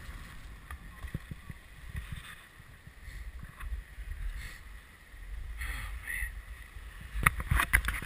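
Skis sliding and scraping over packed snow, with a low rumble of wind on the camera microphone and a few soft swishes; a cluster of sharp clicks and knocks near the end.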